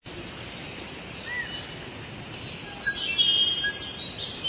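Birds chirping and whistling, short rising and falling calls scattered through with a cluster of them about three seconds in, over a steady outdoor hiss.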